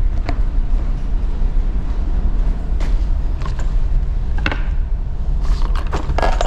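Steady low rumble of a cargo ship's machinery heard inside its accommodation, with a few light clicks and clatters as wooden table tennis paddles and a plastic tube of balls are handled, several coming close together near the end.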